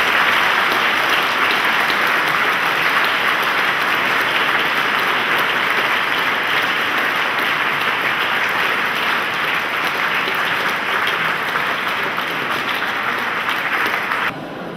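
Audience applauding, steady dense clapping that cuts off abruptly near the end.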